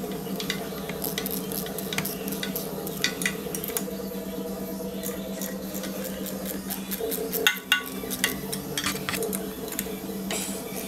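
Hand ratchet and metal tools clicking and clinking in irregular bursts while an O2 sensor is worked loose from a motorcycle exhaust header, with a louder cluster of clinks about seven seconds in.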